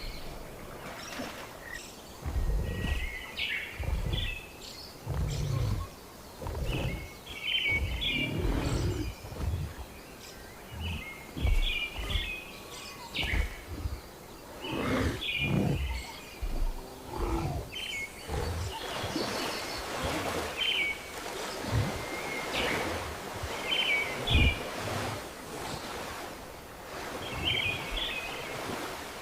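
Rainforest ambience: a bird repeats a short phrase of high chirps every second or two, over irregular low rumbles and thuds.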